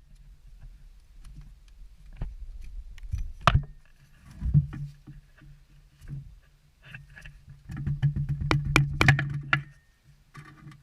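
Irregular clicks and knocks of hand tools and metal parts being handled during work on a car engine, with a sharp clink about a third of the way in and a busy run of clinks and rustling near the end.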